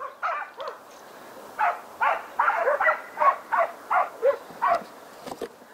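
West Siberian Laikas barking in a quick run of about ten barks, roughly three a second, starting about a second and a half in. This is hunting dogs baying at a wild boar.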